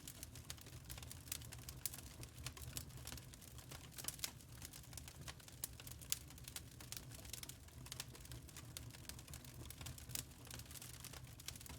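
Wood fire crackling in a fireplace: dense, irregular sharp pops and snaps over a faint, steady low rumble.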